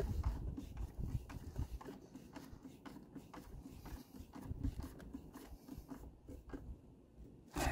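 Faint scattered clicks and light knocks of a nut driver tightening the carburetor mounting bolts on an Echo PB-580T backpack blower, over a low, uneven rumble.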